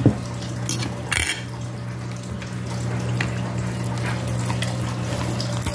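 Metal forks clinking and scraping on a ceramic plate: a sharp click just after the start and a few lighter clicks in the next second or so, over a steady low hum.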